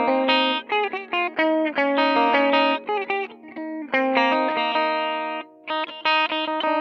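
Electric guitar picked note by note in a quick run of separate ringing notes, with a short break about five and a half seconds in.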